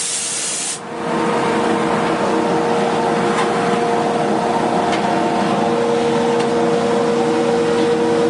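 Duct-cleaning vacuum running with a steady hum under a rushing air noise. A high hiss of compressed air from the air gun cuts off suddenly under a second in.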